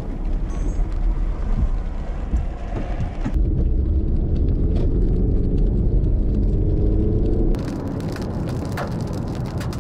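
Car engine and road rumble heard from inside a moving vehicle, with rain pattering on the windshield. The engine note climbs slowly in the middle as the car speeds up, and the sound shifts abruptly twice.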